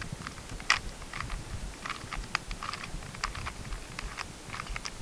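A Rubik's Cube being turned by hand through a move sequence: quick plastic clicks and clacks of the layers snapping round, several a second at an uneven rhythm.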